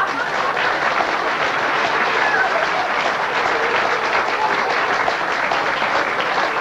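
Theatre audience applauding, steady dense clapping.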